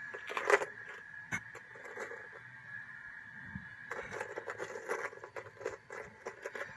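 Gold chain necklace with Alhambra clover motifs being handled in a gloved hand: the links and motifs rustle and clink against each other and the glove, loudest about half a second in and in a run of small clinks from about four seconds on. A faint steady high whine sits underneath.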